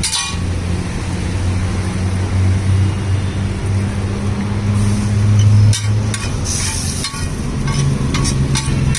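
An engine running nearby: a steady low hum whose pitch steps up about three-quarters of the way in, with a few sharp clanks over it.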